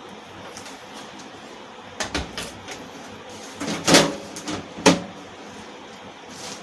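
Knocks and clicks from PC hardware being handled: a few light clicks about two seconds in, a loud knock around four seconds and another sharp one near five seconds, over a steady background hiss.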